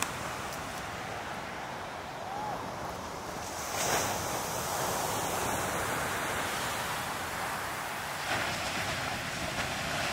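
Heavy ocean surf: large waves breaking and washing in the shorebreak, with a steady rushing sound and a brief louder burst about four seconds in.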